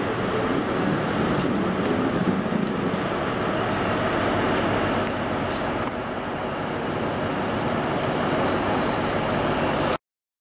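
Class 153 single-car diesel multiple unit drawing slowly into the platform: a steady rumble from its underfloor diesel engine and wheels on the rails, with faint high wheel squeals near the end.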